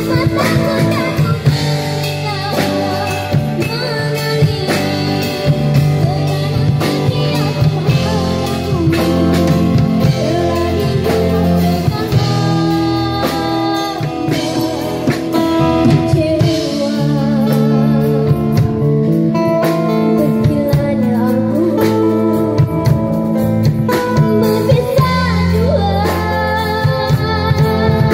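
A young girl singing live into a microphone, accompanied by strummed acoustic guitar and a drum kit: a street band performing a ballad through a small amplified sound system.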